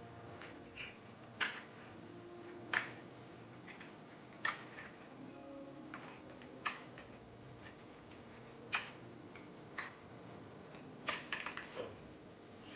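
Irregular sharp clicks and taps from small tools and parts being handled on a mobile phone during repair, with a quick run of clicks near the end.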